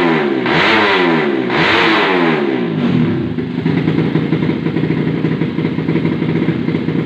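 Yamaha Vega motorcycle engine, bored to 125 cc, revved in quick throttle blips about once a second, each dropping back, three times; about three seconds in it settles to an uneven idle.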